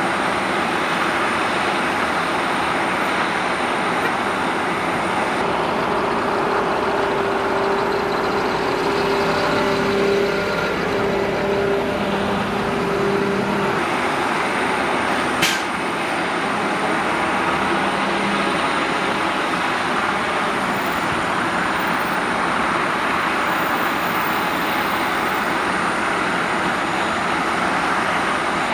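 Steady, loud noise around a parked cargo jet with a thin high whine through it. A military utility vehicle's diesel engine hum stands out for several seconds in the middle as it rolls off the aircraft's ramp, and there is one sharp click about halfway.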